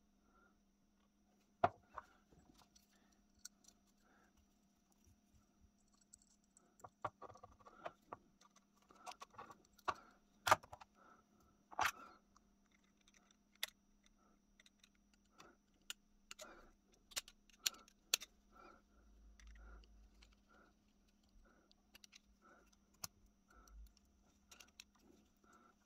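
Small steel lock parts of an antique percussion pocket pistol clicking, tapping and scraping together as the mainspring and its screw are fitted by hand and with a thin screwdriver. The clicks are irregular, with a few sharper ones among many light taps.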